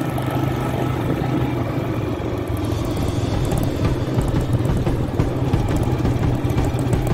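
Vintage motorcycle engine running steadily.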